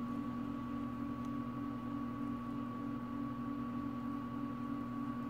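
A steady electrical hum with a constant high tone above it, and a faint click about a second in.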